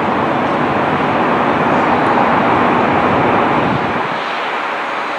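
Jet airliner flying past low on its landing approach: a steady rushing engine noise that swells to its loudest two to three seconds in and then eases off.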